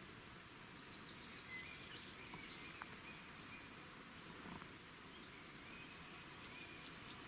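Faint outdoor ambience: a steady low hiss with a few faint, high chirps, like distant small birds, and occasional small clicks.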